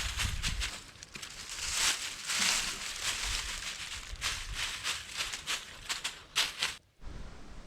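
Dry leaves and twigs rustling and crackling with many sharp little snaps, as they are handled or trodden on; the sound stops abruptly near the end, leaving a faint hiss.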